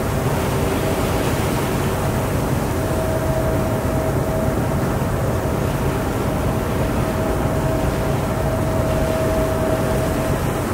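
Boat under way at sea: a steady low engine rumble mixed with the rush of water and wind, with a thin whine that fades in and out.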